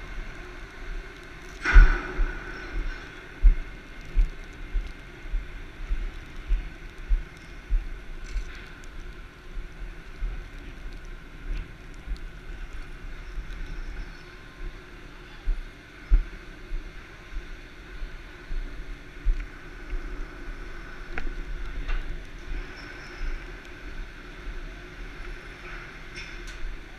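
Footsteps thumping on a ship's steel deck at a walking pace, about one and a half to two a second, over a steady hum. There is one sharp knock about two seconds in.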